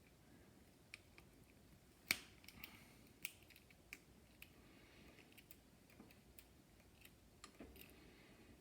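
Faint scattered clicks and light metallic ticks of a bicycle chain being handled and cut with a chain tool, with one sharper click about two seconds in.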